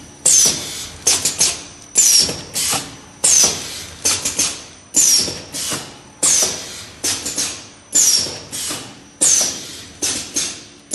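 10-head liquid filling machine running through its cycle. Each cycle is a sharp burst of hiss with a falling high whistle, followed by a quick run of mechanical clacks, and it repeats about every one and a half seconds.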